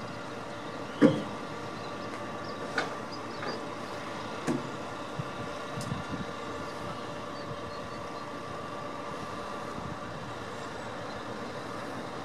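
A heavy vehicle's engine running steadily, with a few sharp metal clanks, the loudest about a second in and others about three and four and a half seconds in, as ratchet tie-down straps and their hooks are pulled off a flatbed trailer.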